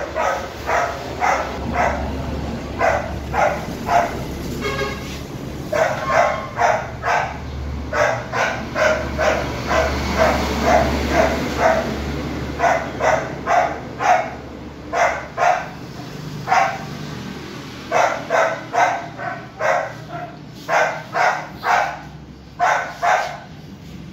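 Golden retriever puppy barking over and over, in quick runs of several barks with short pauses between the runs.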